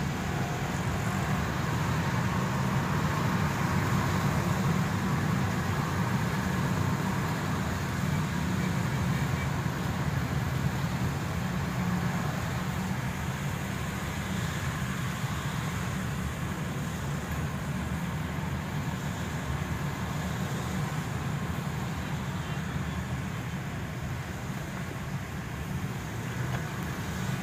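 Car driving on a wet road, heard from inside the cabin: a steady low drone of engine and road noise with the hiss of tyres on wet tarmac.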